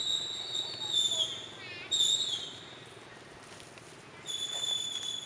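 Young macaque giving high-pitched, steady squealing cries, three in a row, each dipping in pitch as it ends; the last is the longest.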